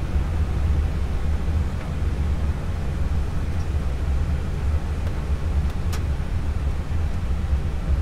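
Steady low rumble and air hiss of an Airbus A320 heard from inside the cockpit, with its engines and air conditioning running, and a few light clicks about five to six seconds in.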